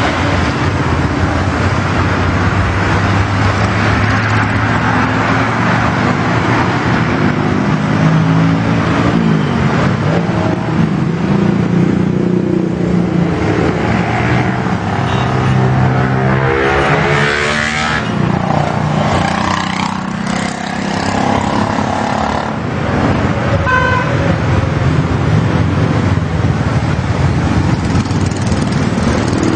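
Motorcycle riding in road traffic: its engine runs steadily under heavy wind noise, with vehicle horns tooting now and then.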